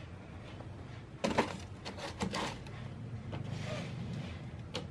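Handling noises as a pair of suede sneakers is set into a cardboard shoebox lined with tissue paper. A cluster of knocks and clatters starts about a second in, a short papery rustle follows near the end, and there is a single sharp tap just before it ends.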